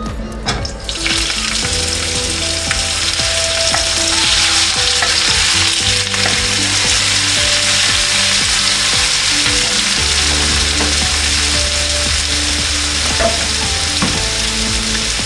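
Food sizzling as it fries, a steady hiss that sets in about a second in, with a few light taps. Background music plays underneath.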